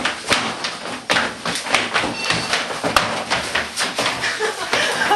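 People moshing inside an elevator car: a rapid jumble of thuds and bangs as bodies slam into each other and the car's walls, with shouting voices mixed in.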